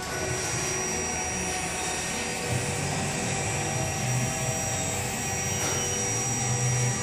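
Dual heavy-duty linear actuators running, their electric motors giving a steady whine as they tilt up the full front end of a 1954 Ford F100.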